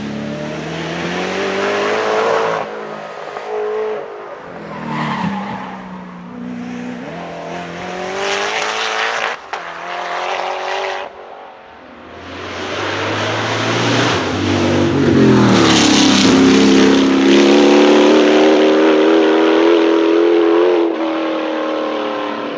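A race car's engine accelerating hard, its pitch climbing and dropping back at each gear change. The longest and loudest pull comes in the second half.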